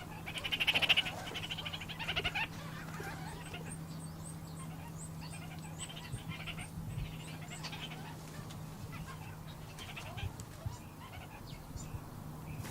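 Parrots giving harsh, rasping squawks in short bouts, loudest about a second in, with faint high chirps in the background over a low steady hum.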